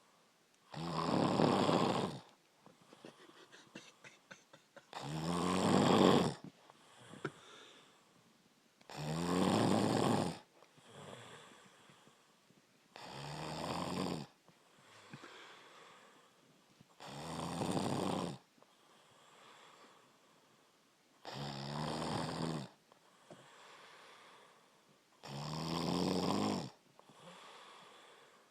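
A man snoring steadily in his sleep: seven loud, rasping snores about every four seconds, each lasting over a second, with fainter breathing between them.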